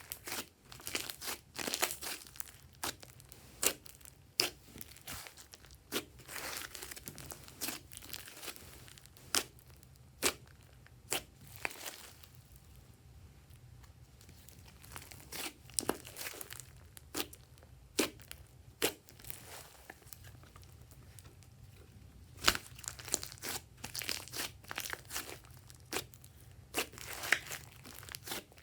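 Glossy slime being pressed and folded by hand, giving sharp, irregular clicks and pops of trapped air, often in quick clusters with short quieter gaps.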